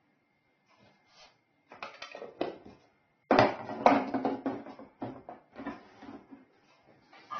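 Plastic parts of a kitchen juicer knocking and clicking as the jar is handled and fitted onto the base, in irregular clatters. The busiest clatter comes a little over three seconds in. The motor is not running.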